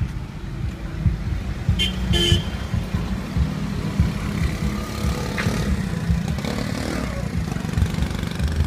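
Street traffic: a continuous low rumble of passing motor vehicles, with a short horn toot about two seconds in.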